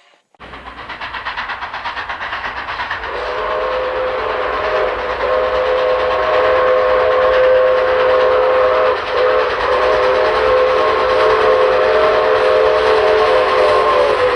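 A train running with a fast, even rhythmic beat, then from about three seconds in a long multi-note train whistle held almost to the end, broken briefly twice.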